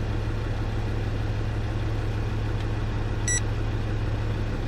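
Land Rover Discovery 2's five-cylinder Td5 diesel idling steadily during a cylinder balance test, with a short electronic beep about three seconds in. The balance readings show cylinder 3 at 14, just one below the fault threshold, which the owner says could be anything from oil in the loom to mucky fuel.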